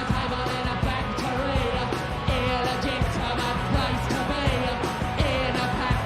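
Rock music with a singing voice over full band backing.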